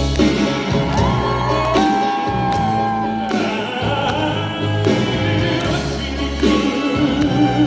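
Live band music in an instrumental break between sung lines, with one long high note held for about two seconds that steps down in pitch partway through.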